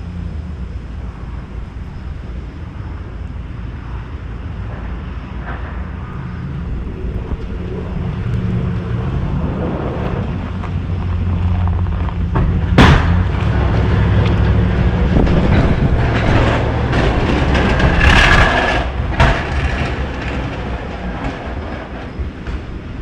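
Engine of a snow-plowing vehicle running steadily, then building in loudness partway through as it works harder. A single sharp bang comes about halfway, and a brief louder noisy rush follows a few seconds later.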